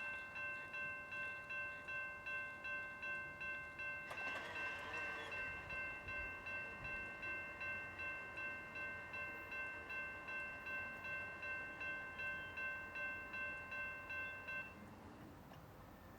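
Railroad grade-crossing warning bell ringing at a steady beat of about two strokes a second, each stroke a bright multi-tone ding that dies away. It is the warning signal that a train is approaching the crossing. It starts abruptly and cuts off sharply near the end.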